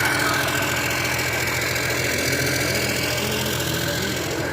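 Cat 320D2 excavator's diesel engine running steadily at a constant speed during an engine test.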